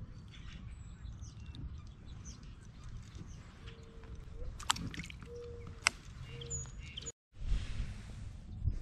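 Wind buffeting the microphone, with birds chirping now and then and a few short whistles near the middle. The sound drops out briefly about seven seconds in.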